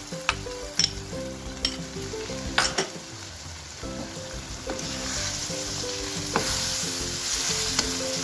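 Chicken and freshly added whisked yogurt sizzling and frying in a karahi while a wooden spatula stirs it, knocking against the pan now and then. The sizzle grows louder about five seconds in.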